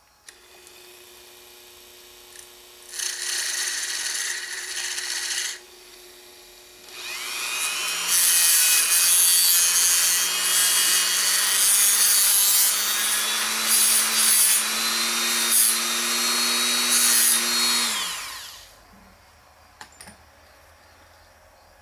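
Small electric power tool grinding down the soldered end fitting of a motorcycle throttle cable to smooth off its bumps. It grinds briefly about three seconds in. Then, about seven seconds in, the motor's pitch rises and it grinds steadily for about ten seconds before winding down.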